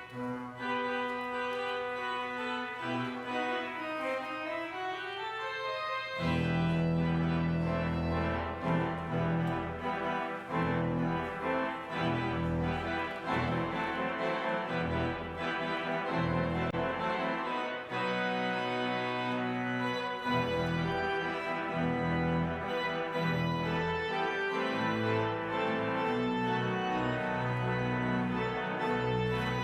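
Church organ playing the closing postlude, held chords in a thinner registration at first, with deep bass notes coming in about six seconds in.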